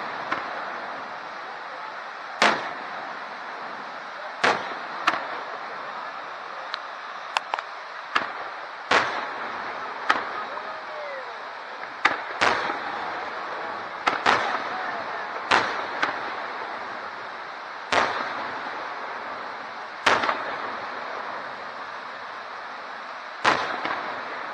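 Aerial fireworks shells bursting, a sharp bang every one to three seconds, sometimes two close together, over a steady background hiss.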